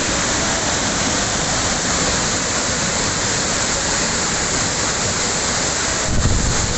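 Waterfall in heavy flow: a steady, loud rush of falling water, with a brief low rumble about six seconds in.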